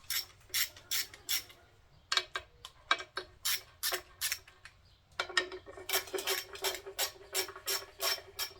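Hand ratchet clicking in short runs as the oil pump mounting bolts on an LS 5.3 engine are snugged down, about two to three clicks a second, quicker in the second half after a brief pause.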